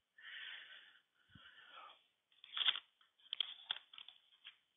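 Hands handling steel tractor final drive parts on a paper-covered bench: soft paper rustling, then a knock and a few light metal clicks as the upper shaft with its gear is picked up.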